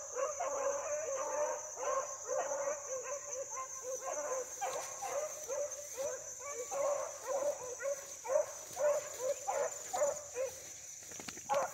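Dogs, likely a pack of hounds on a run, barking and yelping in quick, overlapping calls, several a second. A steady high-pitched tone runs underneath.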